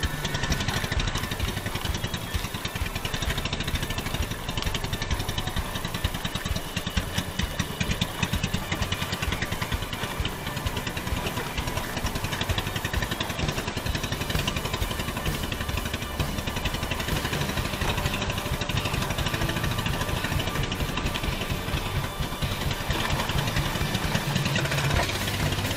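Engine of a small motorized fishing boat running steadily while under way.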